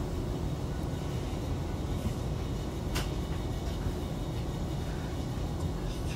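Hiroshima Electric Railway 5100-series (Green Mover Max) low-floor tram setting off from a stop, heard from inside the car: a steady low rumble of motors and wheels on the rails, with a single sharp click about three seconds in.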